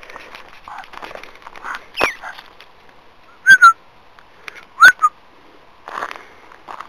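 Three short, loud whistles: a falling one about two seconds in, a quick two-note whistle about halfway, and a whistle that rises then falls near the end. Faint rustling runs underneath.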